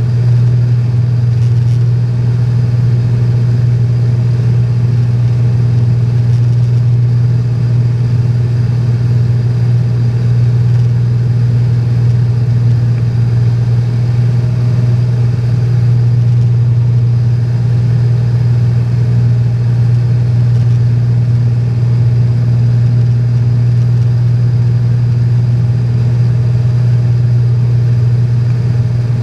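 Cessna 210's piston engine and propeller droning steadily in flight, heard from inside the cockpit: a deep, even drone that holds the same pitch throughout.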